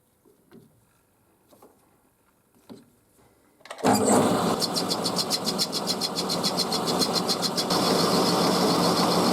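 Small clicks of handling, then about four seconds in a workshop machine's motor is switched on and runs steadily, with a fast even ticking in its sound.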